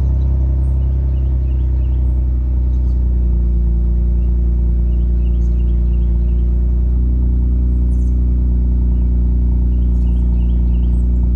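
2018 Kia Stinger GT2's twin-turbo 3.3-litre V6 idling steadily after a cold start, heard at the tips of its stock exhaust as a low, even drone.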